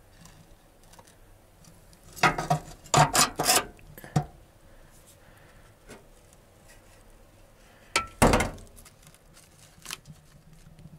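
Sharp metallic clinks and knocks from a small sheet-metal wood stove being tended as its fire is lit, its door and firewood handled. One cluster of clinks comes a couple of seconds in and another about three quarters of the way through.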